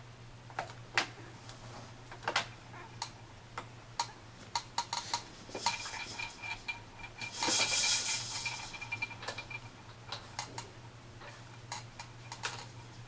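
Irregular plastic clicks, taps and rattles from a baby's Evenflo activity center as the baby slaps and fiddles with its toys. A longer, louder burst comes about seven and a half seconds in.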